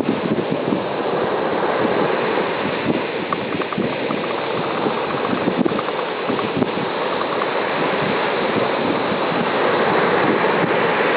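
Mediterranean sea waves washing onto the shore in a steady, unbroken surge, with wind buffeting the microphone.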